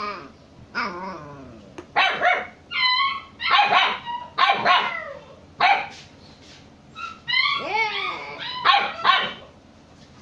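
Pet dogs barking and yipping in short, loud calls with high-pitched whines among them.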